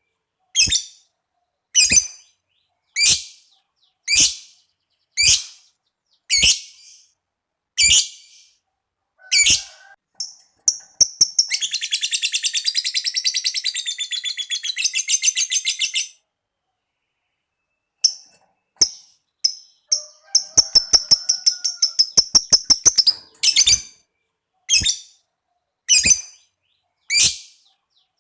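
Lovebird calling: sharp, high single chirps about once a second ('ngetik'), broken about eleven seconds in by a long, rapid chattering trill lasting about four seconds ('ngekek'). After a short pause comes a shorter burst of rapid chatter, then more single chirps.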